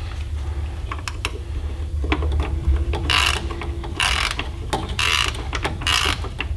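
Ratchet wrench tightening the mounting bolts of a new fuel transfer pump: scattered clicks at first, then from about halfway a rapid ratcheting rattle roughly once a second as the handle is swung back and forth, over a steady low hum.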